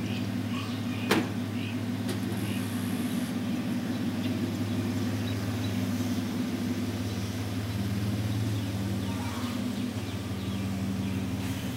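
Dodge Ram 1500's 3.7L V6 with Flowmaster Super 40 dual exhaust idling steadily, with one sharp click about a second in.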